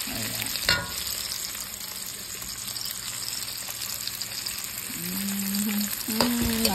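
Bacon, a sausage patty and a hash brown sizzling in a frying pan, with one short scrape of a spatula against the pan a little under a second in. A person's voice comes in over the sizzle near the end.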